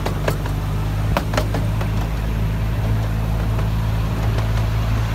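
Miniature amusement park train running along its track: a steady low engine hum, with a few sharp clicks in close pairs near the start as the wheels cross rail joints.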